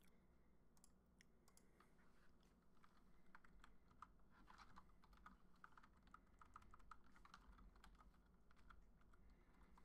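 Faint typing on a computer keyboard: keys clicked in irregular short runs, sparse at first and busier from about four seconds in.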